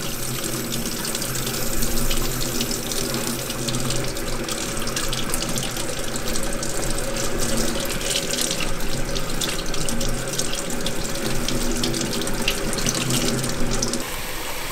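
Tap water running steadily and splashing over a gloved hand held in the stream, with a faint low hum underneath.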